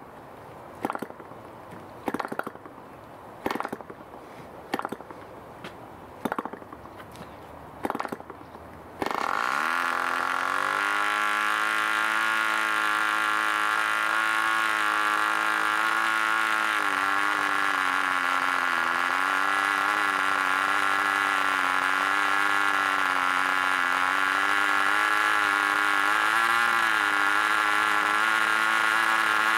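D-C Tornado Twin 5cc boxer twin-cylinder glow engine being hand-flicked over, with about seven short bursts a second or so apart. About nine seconds in, it catches and runs: the pitch rises quickly, then settles into a steady high buzz that wavers slightly. The needle valve has just been opened a little richer after a lean, hot run.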